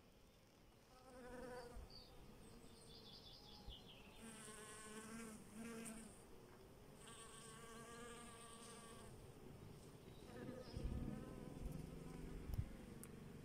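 A bee buzzing as it flies among low flowering plants, the buzz swelling and fading in several spells as it comes close and moves away. A couple of sharp taps near the end.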